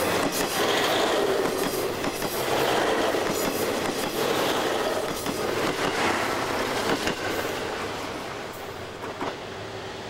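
Limited express Ozora, a KiHa 183-series diesel train, passing close by at speed: wheels clattering over the rail joints under the engine noise. The sound fades in the last couple of seconds as the end of the train goes by.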